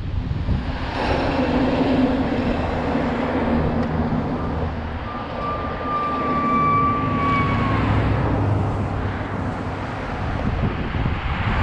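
Wind buffeting the microphone and road noise on a moving bicycle on a city street. A low hum sounds for the first few seconds, and about five seconds in a steady high squeal holds for about three seconds.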